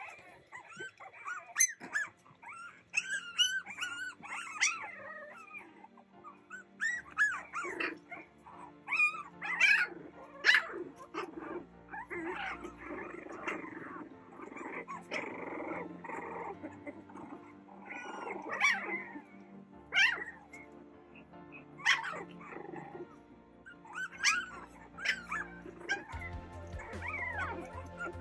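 A litter of Boston Terrier puppies yipping and whining in short, high calls as they play, over background music.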